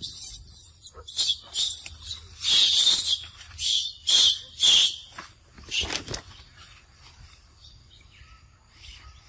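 Macaque biting and chewing a piece of yellow fruit close up: a run of short, loud eating bursts over the first five seconds or so, then quieter.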